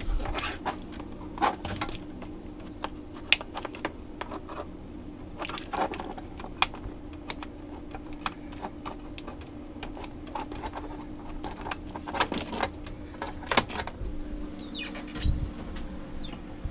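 Scattered small clicks, taps and light rattles of hands fumbling to plug a TV's power cord into its outlet, over a steady low hum.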